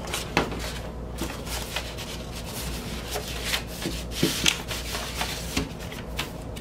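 Vinyl record in a paper inner sleeve being slid into its cardboard album jacket: paper rustling and rubbing against the jacket, with several light handling taps and clicks.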